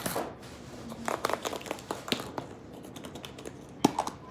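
A plastic Easter egg being handled: irregular light clicks and taps with some crinkling, and one sharper click near the end.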